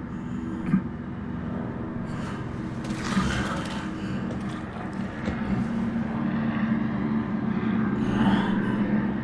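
Anime soundtrack audio of a car driving: a steady engine hum, with two brief swells of rushing noise, one about three seconds in and one near the end.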